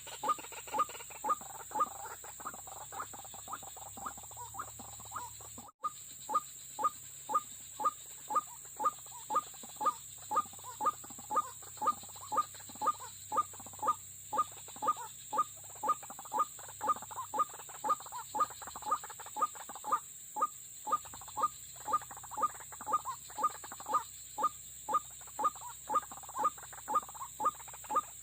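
White-breasted waterhen calling, a short harsh note repeated monotonously about twice a second with a brief break about six seconds in.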